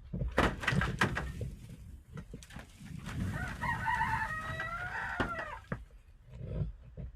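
A rooster crows once, a call of about two seconds that starts choppy and ends in a falling glide. Before it come a few sharp knocks and scuffing sounds.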